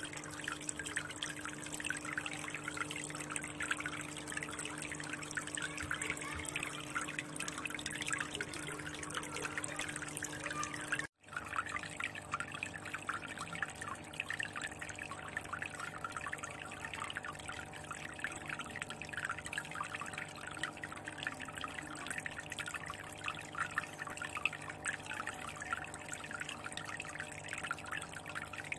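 Water trickling and splashing steadily into a fish tank, as from a spout or filter outflow, over a low steady hum. The sound cuts out for an instant about eleven seconds in.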